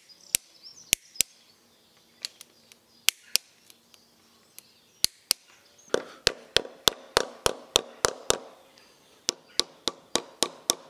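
Mallet tapping a new crankshaft pressure plate into place on the nose of a Citroën U23 engine's crankshaft: sharp knocks with a short ring. They come singly and in pairs at first, then about halfway through become a quick steady run of about three knocks a second.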